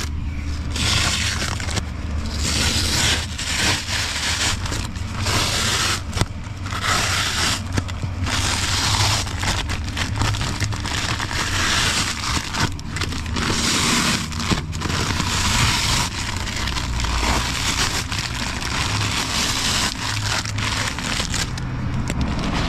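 Plastic and litter being crinkled, scraped and pulled up from a car's floor: irregular rustling, crackling bursts over a low steady hum.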